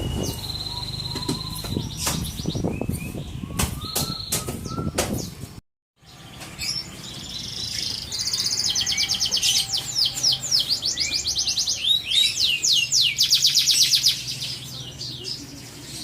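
Canary singing, with long runs of fast, rapidly repeated trill notes that get loudest in the second half. The sound cuts out completely for a moment about six seconds in.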